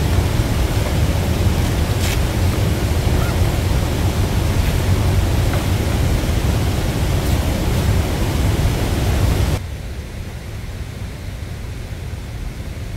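Waterfall and river rapids rushing in a steady, loud roar. About ten seconds in it drops abruptly to a fainter rush.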